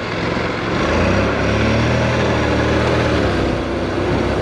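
Honda NC700X's 670 cc parallel-twin engine running under way on a dirt trail, over a steady rush of wind and road noise. It pulls harder about a second in and eases off near the three-second mark.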